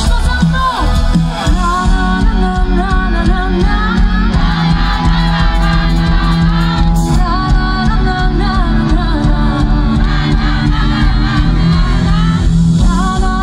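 Live pop band with a woman singing into a handheld microphone over a steady dance beat and heavy bass, heard through a phone recording from the audience.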